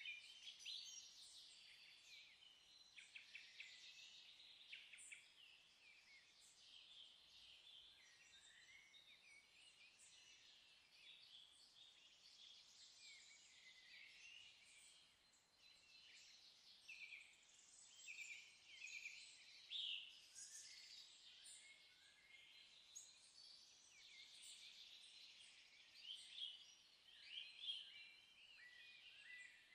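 Faint birdsong: small birds chirping and trilling, with many short overlapping calls high in pitch.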